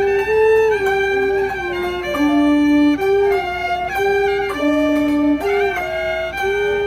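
Snakeskin-headed ebony gaohu, the high-pitched Cantonese two-string fiddle, bowing a slow melody of held notes, sliding up or down between several of them.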